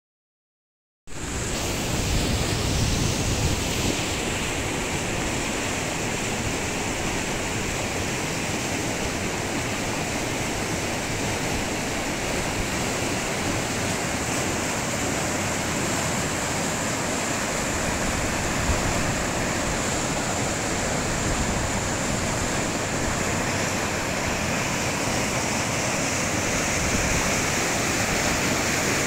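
Steady rushing of water, as from heavy rain or floodwater, starting suddenly about a second in and holding at an even level.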